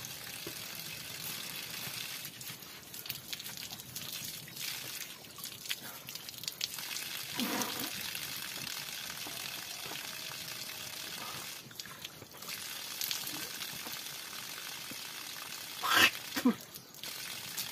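Thin stream of water trickling from a hose outlet into a muddy puddle, with splashing as hands are rinsed under it. Short louder sounds stand out about halfway through and again near the end.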